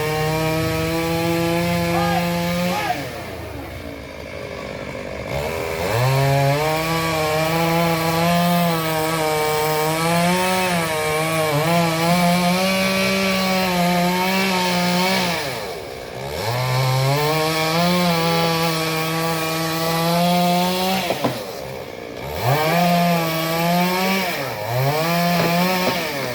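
Chainsaw cutting into a tree, running at high revs under load. Its pitch drops as it slows about three seconds in, again around the middle, and twice near the end, each time rising again as it is throttled back up.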